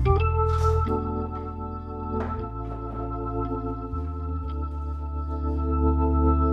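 Hammond-style organ music: held chords over a low bass line, the chords changing every second or so, with a deeper bass note coming in about four seconds in.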